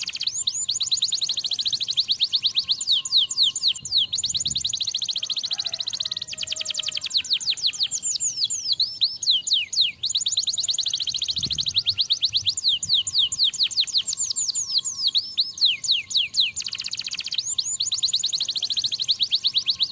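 Domestic canary singing a long, unbroken song of rapid trills: quick downward-sweeping notes repeated many times a second, changing speed every few seconds and packing into faster, denser rolls in places.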